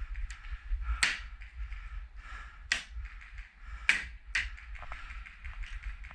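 Airsoft guns firing single sharp cracks: one about a second in, another near the middle, then two close together shortly after, with a few fainter distant shots, over a low steady rumble.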